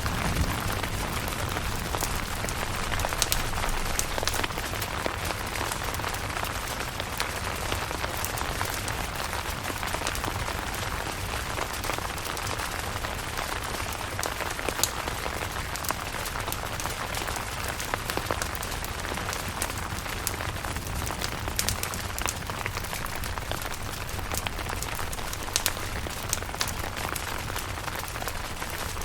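Steady rain falling on a camping tent, with scattered sharper taps of single drops.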